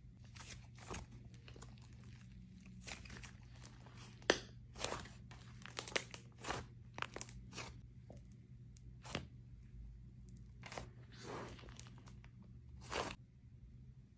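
Thick pink slime stretched and pressed by hand, giving irregular sticky pops and crackles. The loudest pop comes about four seconds in, with a cluster of smaller ones just after and a few more spaced out toward the end.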